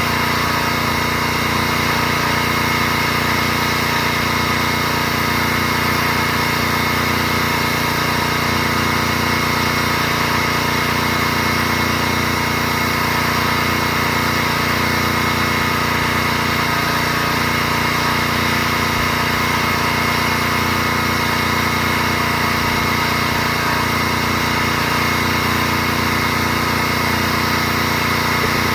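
Gas-engine pressure washer running steadily.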